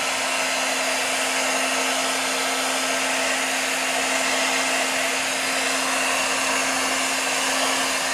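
Electric hot air gun running steadily, blowing on damp body filler to dry it out: an even rush of air over a steady low hum.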